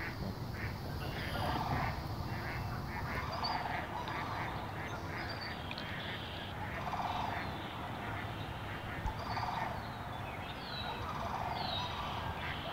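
Waterfowl calling over and over with short honks and quacks, mixed with a few high, short falling calls from smaller birds, over a steady low background rumble.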